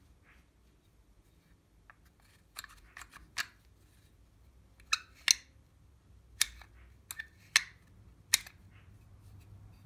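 A string of sharp metallic clicks and clacks, about ten in six seconds, some in quick pairs, from the metal parts of an old door lock being handled.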